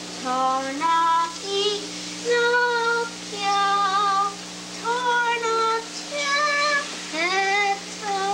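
Children singing a song in short held phrases, with a steady low hum underneath.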